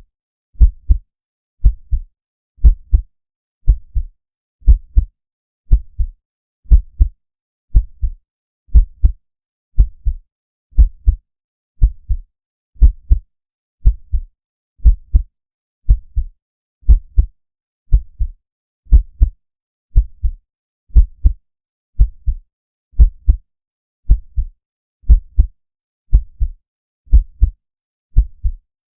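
Heartbeat sound effect: a slow, steady double thump (lub-dub) about once a second, deep in the bass, with silence between the beats.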